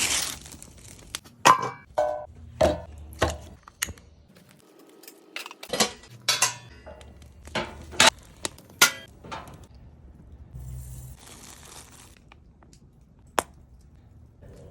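Hard cooking gear clinking and knocking, about a dozen sharp strikes in the first ten seconds, then a short hiss near eleven seconds.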